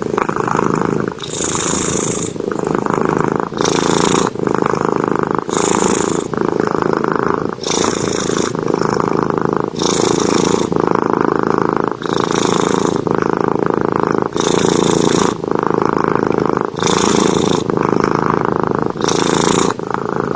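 Domestic cat snoring loudly in its sleep: a rattling rumble that goes on through each breath, with a hissing rush of air about every two seconds.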